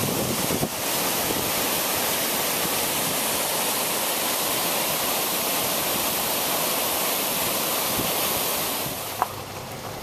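Steady rush of a waterfall swollen by days of rain, its whitewater pouring over rock as one even wash of noise. It falls away near the end.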